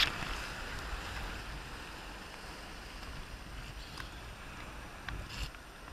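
Surf whitewater washing over and around a sea kayak: a breaking wave splashes over the boat at the start, then a steady rush of foam, with a couple of light knocks and a short splash near the end.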